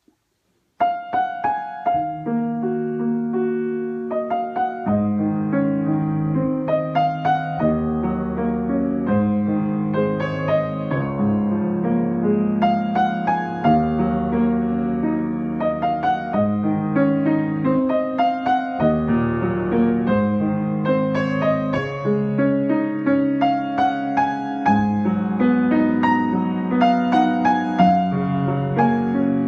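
Grand piano played solo with both hands: sustained low chords under higher notes in a flowing, unbroken line, starting about a second in.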